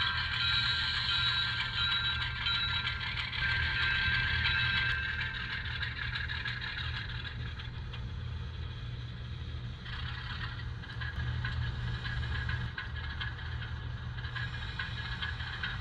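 Sound decoder of an Atlas ALCO HO scale diesel locomotive playing its diesel prime-mover sound through the model's small speaker, a steady running engine with a low hum. Steady high tones sound over it for the first five seconds or so, then the engine sound carries on alone.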